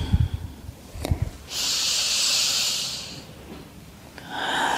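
A woman's deep, audible breath, about a second and a half in and lasting about a second and a half; another breath starts near the end. A few soft low thumps come in the first second.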